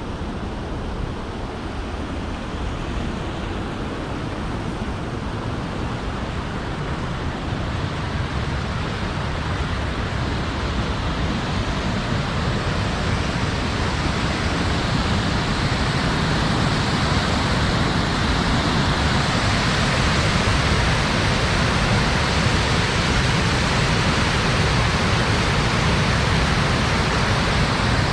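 Steady rush of water from a cascading waterfall, growing gradually louder.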